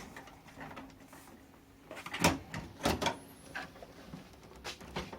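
Scattered knocks and clunks of a power supply being pushed into a PC case and seated, the loudest about two and three seconds in.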